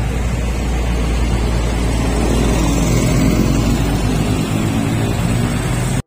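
Mercedes-Benz coach bus driving past close by: a deep diesel engine drone with road and wind noise, loudest about halfway through. The deepest part of the drone drops away near the end.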